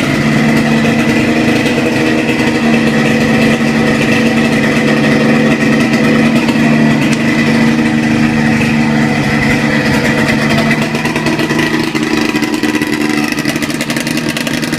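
Polaris Indy Trail's 488 cc fan-cooled two-stroke twin running steadily, its pitch holding nearly level.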